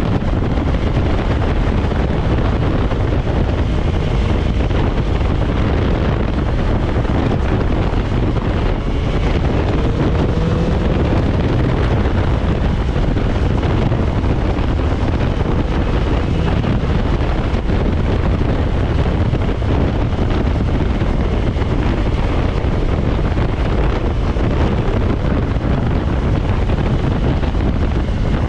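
Steady rush of wind on the microphone, with a BMW S1000XR's inline-four engine running underneath at riding speed.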